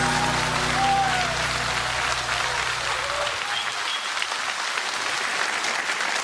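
Live audience applauding at the end of a song, with the band's final held chord ringing under it and stopping about three seconds in.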